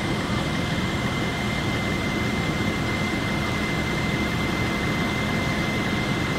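Fire apparatus diesel engines running steadily at the fireground: a continuous low rumble with a constant high-pitched whine over it.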